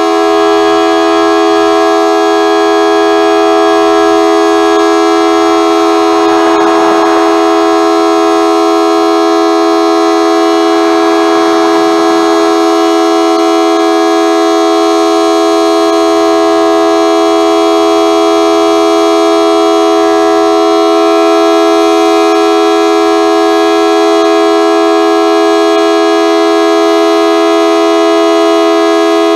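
Model 2T dual-tone outdoor warning siren sounding a steady, loud, low-pitched chord at constant pitch. It does not sound too good.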